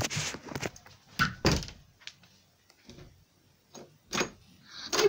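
A few knocks and thuds from a bedroom door being handled, opened and shut, with quieter handling noise between them.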